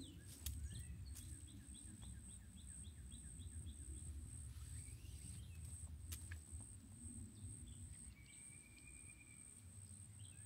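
A bird calling a quick run of short repeated notes, about four a second, for a few seconds, then a single held whistled note near the end, over a steady high insect whine and faint low rumble.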